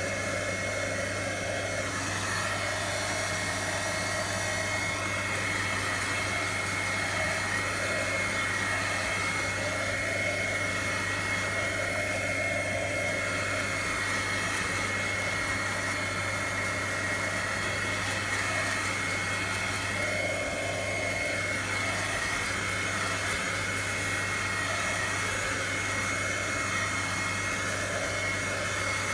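Handheld craft heat gun blowing hot air steadily, a rush of air with a thin high whine over it, drying freshly spray-dyed deli paper.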